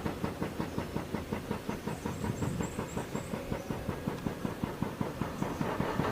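Heavy diesel construction machinery running, with a steady rhythmic knocking pulse about five or six times a second.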